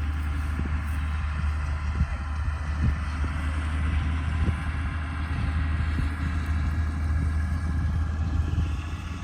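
A motor vehicle running with a steady low rumble, with scattered short knocks and jolts through it.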